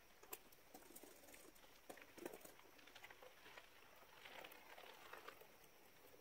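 Near silence, with faint scattered clicks and a soft rustle.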